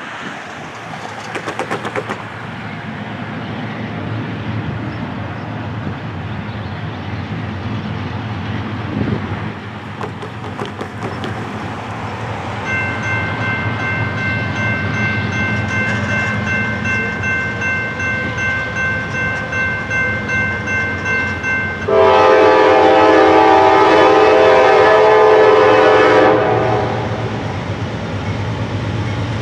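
Norfolk Southern GE AC44C6M diesel locomotive approaching, its low rumble slowly growing louder. About 13 s in a grade-crossing warning bell starts ringing steadily, and about 22 s in the locomotive's horn sounds one long blast of about four seconds.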